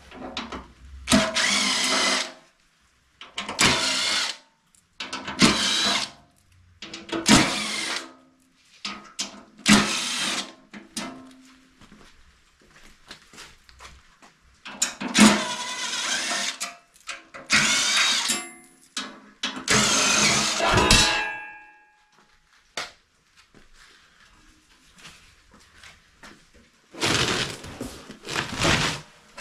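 Ridgid cordless driver running in a string of short bursts of one to two seconds each, backing small screws out of a steel bumper panel one after another.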